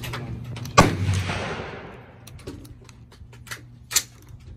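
A single rifle shot about a second in, loud and sharp, with a long echoing tail that fades over about a second. Afterwards, light clicks and knocks as a scoped bolt-action rifle is handled on a wooden bench.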